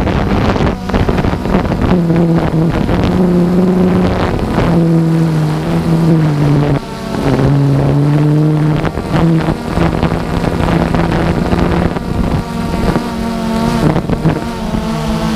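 DJI Phantom 2 quadcopter's motors and propellers droning, their pitch stepping up and down as the motor speeds change, with wind buffeting the microphone.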